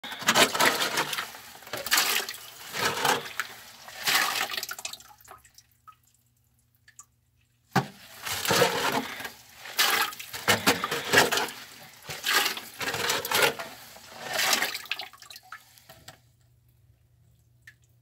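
Water surging and splashing in a rock crevice, in noisy gushes about once a second. The gushes stop for a couple of seconds around the middle, then start again.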